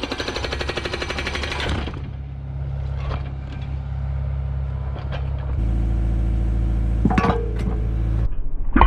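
Okada hydraulic breaker on a Kubota KX057 excavator hammering concrete in a rapid, even run of blows that stops about two seconds in. The excavator's diesel engine keeps running, gets louder a little past halfway, and there are a few knocks near the end.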